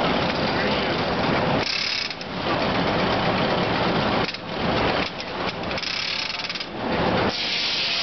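Steam-powered sawmill machinery running: the circular headsaw spinning and the log carriage clattering along its toothed rack track. A high hiss comes and goes several times over the steady clatter.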